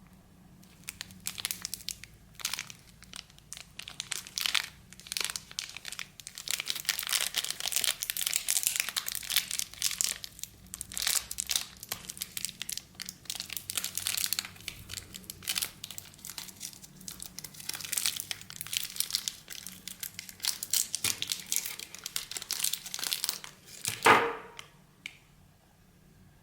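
Plastic wrapper of a bubble-gum pack crinkling and rustling in irregular bursts as it is handled and torn open. Near the end comes one loud sharp knock.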